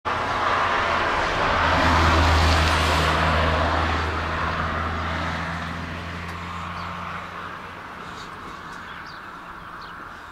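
A motor vehicle passing: a steady engine hum and road noise, loudest about two seconds in, then slowly fading away.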